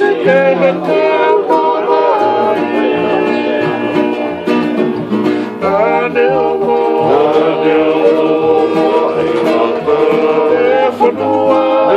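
A group of men singing together in harmony, accompanied by several acoustic guitars and a ukulele.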